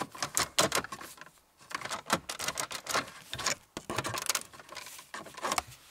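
Hard plastic dashboard trim parts of a Toyota Prius clicking and rattling as they are handled and worked loose by hand, in several bunches of sharp clicks with short pauses between.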